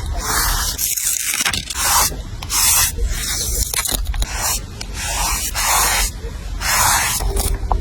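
Short scratchy rubbing strokes on paper, repeated about twice a second, as in rubbing stickers or tape down onto a notebook page.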